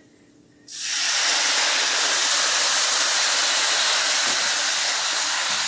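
Chicken broth poured into a hot skillet of browned rice, sizzling loudly and steadily. It starts suddenly about a second in and eases off slightly near the end.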